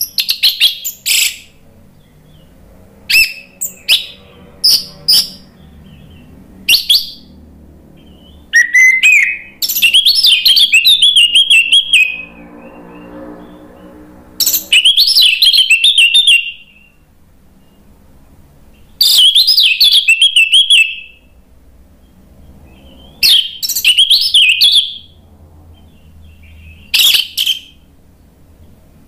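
Orange-headed thrush singing: several short, sharp high notes at first, then loud bursts of fast, varied warbling two to three seconds long, each separated by a pause of a few seconds.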